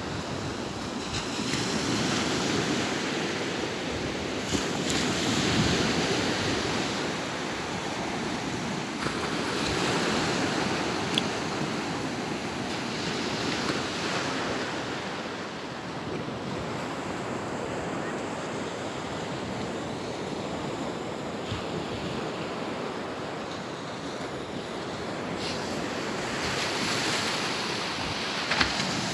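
Sea water washing and wind on the microphone, a steady rushing noise that swells and eases slowly.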